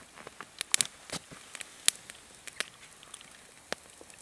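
Small campfire of twigs and sticks crackling, with irregular sharp pops over a faint hiss.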